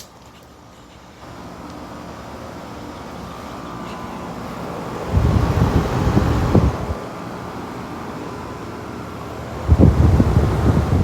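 Road traffic noise swelling as a vehicle goes by, with wind buffeting the microphone in two loud low gusts, about five and ten seconds in.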